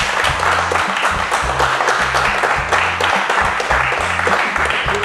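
Applause and clapping over music with held bass notes.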